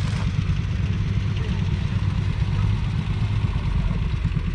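1944 John Deere Model L's 1.1-litre two-cylinder petrol engine idling steadily, a fast, even low pulse.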